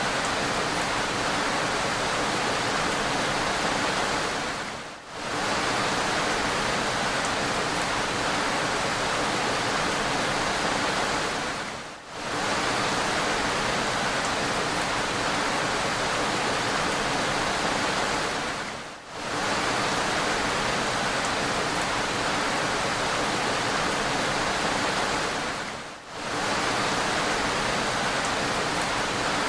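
Steady hiss of heavy rain, even and unchanging, dipping briefly about every seven seconds.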